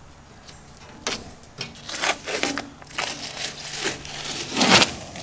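Masking tape being peeled off a car's chrome bumper and grille and crumpled up in the hand: irregular crinkling and tearing bursts, loudest near the end.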